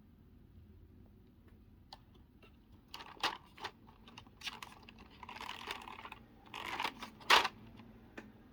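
Hard plastic keycaps clicking and clacking as they are handled, with brief rustling in between; a single sharp click near the end is the loudest.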